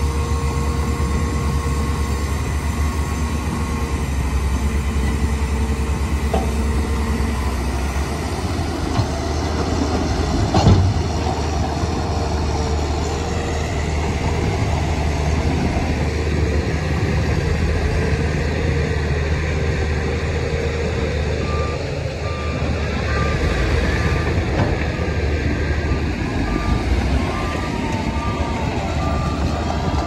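Diesel engines of earthmoving machinery running steadily, with a single sharp knock about a third of the way in. About two-thirds of the way through, a reversing alarm starts beeping at an even pace, a little over once a second.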